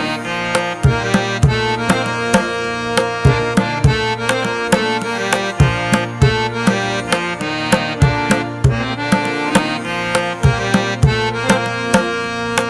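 Instrumental background music: a steady hand-drum rhythm with low, gliding drum strokes under sustained held chords.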